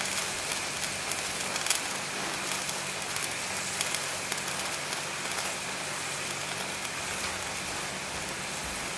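Chicken legs sizzling and bubbling in ghee and water in a pan over a gas flame: a steady hiss with scattered small crackles and pops.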